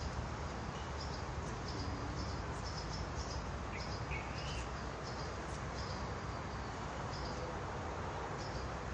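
Outdoor pond-side ambience: a steady background hiss with scattered short, high chirps from small animals, and a couple of lower rising chirps about four seconds in.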